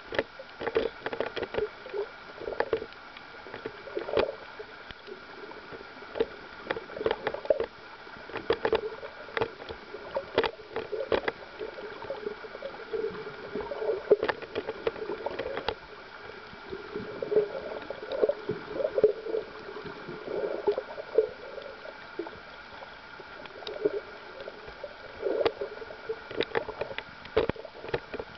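Underwater sound picked up by a submerged camera: irregular gurgling and bubbling water, with scattered sharp clicks.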